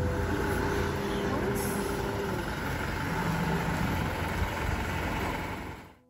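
Street traffic: a heavy road vehicle running past, a steady engine noise with faint humming tones, fading out near the end.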